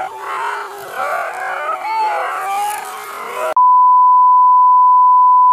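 Excited yelling and baying in the chase, many calls overlapping, cut off about three and a half seconds in by a loud steady censor bleep tone that holds to the end.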